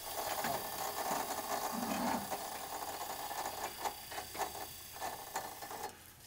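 Electric motor of a truck-mounted crane running under its handheld control, winding in cable to lift a forked log-lifting device. It starts abruptly and stops about six seconds in, with scattered clicks over a steady whirr.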